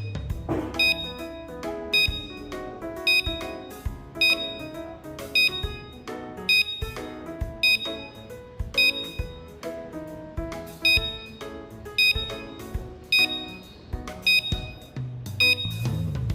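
Background music: a melody over a steady beat, with a bright repeating chime-like accent on the beat.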